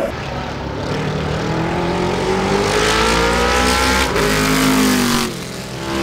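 Formula 5000 race car's V8 engine accelerating hard on track, rising in pitch, with a sharp break about four seconds in as it shifts up, then falling away near the end.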